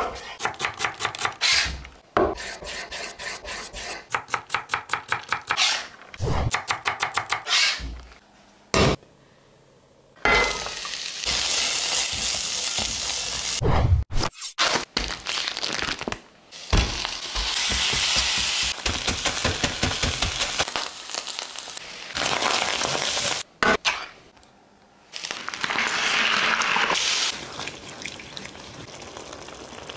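A chef's knife chopping onion on a wooden cutting board in quick, even strokes. This is followed by vegetables and ground beef sizzling as they fry in a pan, with the crinkle of a plastic meat package being handled about halfway through. Near the end comes quieter stirring of the thick ragù sauce.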